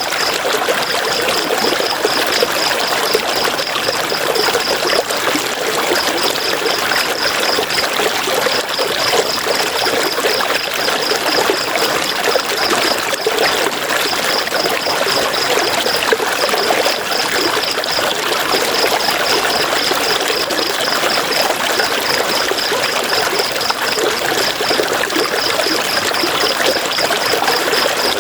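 River water rushing and splashing steadily. A high, rapidly pulsing trill comes and goes over it in runs of a few seconds.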